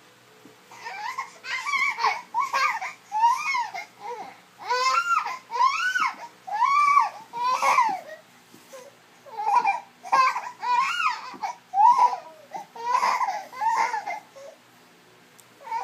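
Baby fussing: a long string of short, whiny cries, each rising and falling in pitch, with a few brief pauses.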